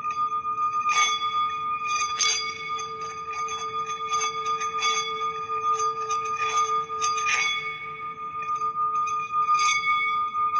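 Singing bowls ringing in a steady, wavering hum, with light strikes sounding over it about six times, each adding a fresh ring.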